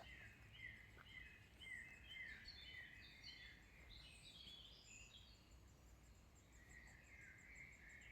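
Faint chorus of several songbirds, with many short, overlapping chirps and trills throughout, over a low, steady rumble.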